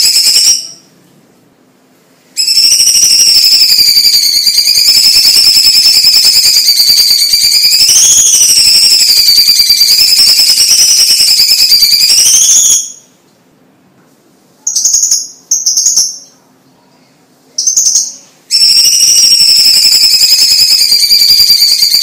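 Orange-bellied leafbird (cucak cungkok) singing: long unbroken phrases of a high, wavering whistle with a fast trill running through it. The song breaks off briefly about a second in, and again past the middle, where three short bursts come before a long phrase resumes.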